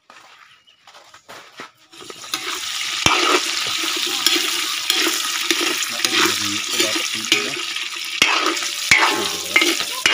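Sliced kikiam and fishballs frying in hot cooking oil in a wok. A loud, steady sizzle starts suddenly about two seconds in, and a metal spatula knocks against the pan a few times.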